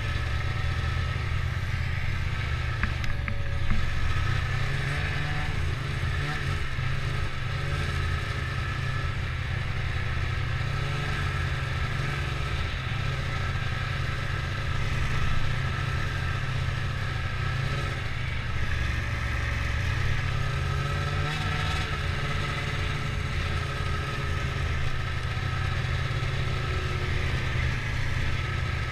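Snowmobile engine running at low speed as the sled cruises slowly, with a steady high whine over it. The engine rises in pitch briefly with throttle about four seconds in and again around twenty seconds.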